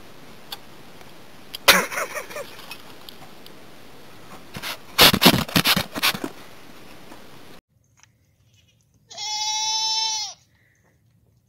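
A goat bleating once, a long steady bleat near the end. Before it, a few sharp knocks and rustles sound over a background hiss.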